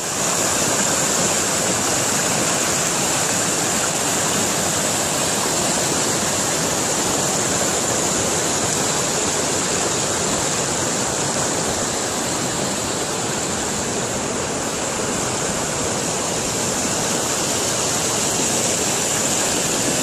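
Fast, shallow mountain river rushing over a rocky, boulder-strewn bed: a steady, unbroken whitewater rush.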